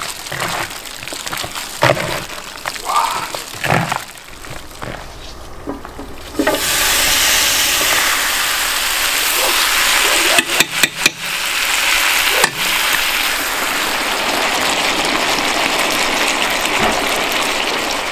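Gloved hands squelching as they knead duck pieces and onions into a thick gochujang marinade. About six seconds in this gives way suddenly to the steady sizzle of the marinated duck frying in a pan, broken by a few sharp clicks near the middle.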